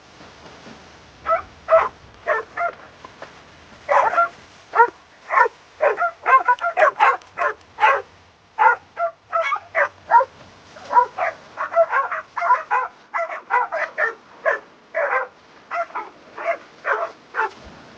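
Dog barking excitedly in a long run of short, sharp barks, two or three a second.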